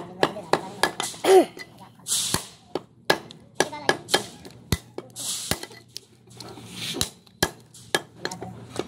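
A cleaver chopping goat meat against a wooden log chopping block, in irregular chops about two to three a second, with a few short hissing noises between them.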